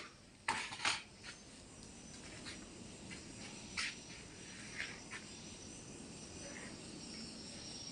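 Insects, crickets, chirping as a faint steady high tone, with scattered clicks and knocks; the two loudest knocks come within the first second.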